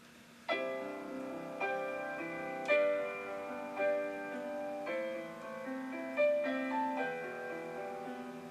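Background piano music: slow chords, a new one struck about once a second.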